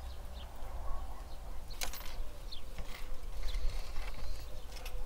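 Metal wire hooks clinking against hanging steel chains as they are hooked on: a few light, separate metallic clinks over a steady low rumble.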